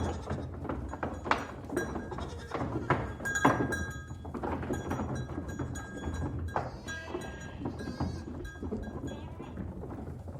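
A herd of goats on the move: several goats bleating in wavering calls, the clearest about two-thirds of the way in and again near the end, over a clatter of short knocks from their hooves.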